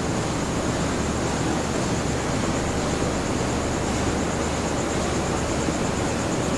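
Passenger train carriages rolling past along a station platform, making a steady rushing noise that holds an even level throughout.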